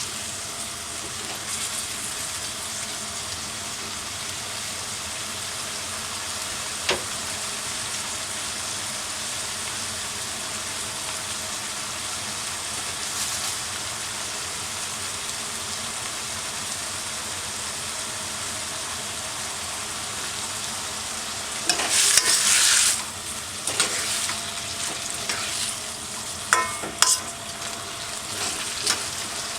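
Food sizzling steadily in a hand-hammered iron wok as it is stir-fried. There is a single knock about seven seconds in, and louder scraping and clattering of a utensil against the wok about three quarters of the way through.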